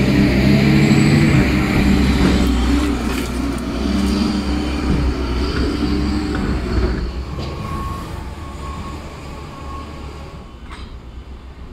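Caterpillar wheel loader's diesel engine running as the loader drives past with its snow pusher, loud at first and fading over the last few seconds as it moves away. Faint short beeps about once a second near the end.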